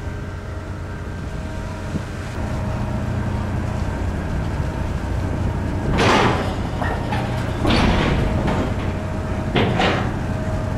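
Car ferry Queen of Capilano coming in to its berth, its engines giving a steady low rumble. Short rushing bursts break in about six, eight and ten seconds in.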